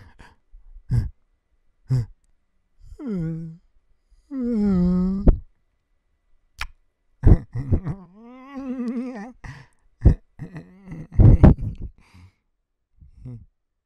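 A man making wordless vocal sounds: a string of short sighs and groans, several gliding down in pitch, and one longer wavering hum about eight seconds in. A sharp click comes just before the middle.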